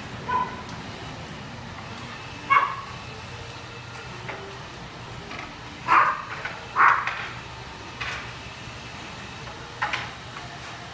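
Dogs barking in a grooming room: about five short, single barks spaced a few seconds apart, over a steady low hum.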